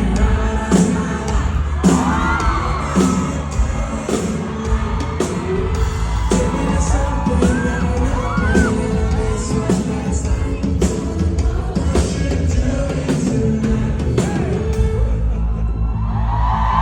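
A live pop-rock band playing an instrumental passage with a steady drum beat and heavy bass, as heard in a concert hall. Voices yell and whoop over the music now and then.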